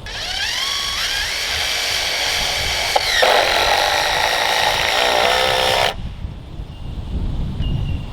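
Power drill running for about six seconds. Its motor note winds up in pitch over the first second and holds steady, then shifts lower about three seconds in as it comes under load. It stops abruptly.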